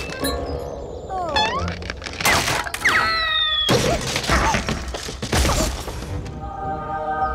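Cartoon soundtrack: background music mixed with cartoon sound effects. There are gliding squeaky pitch slides in the first half, several short noisy hits in the middle, and held music chords near the end.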